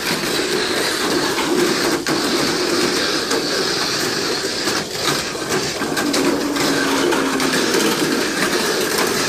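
Mini 4WD cars racing laps around a multi-lane plastic track: a steady whir of small electric motors and gears, with the rattle of the cars running along the track walls.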